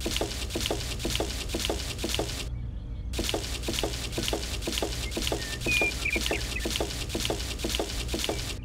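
Even, rhythmic clicking, about four clicks a second, over a steady low hum; the clicking drops out for about half a second around two and a half seconds in. A short bird chirp comes a little before six seconds.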